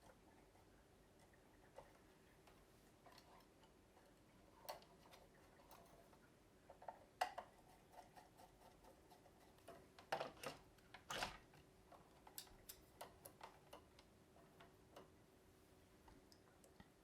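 Near silence with faint, scattered light clicks and taps, a few louder ones clustered about seven seconds in and again around ten to eleven seconds in, over a faint steady hum.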